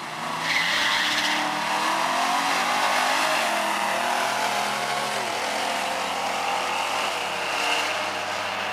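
Two drag cars launching off the start line at full throttle and running hard as they pull away down the strip. A short high squeal comes at the launch.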